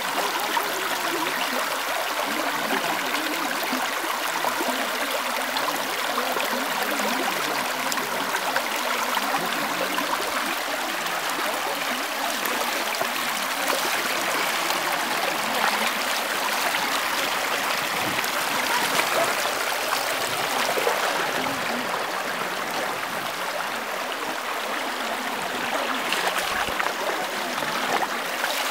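Shallow spring-fed brook running over stones: a steady babbling, trickling flow of water.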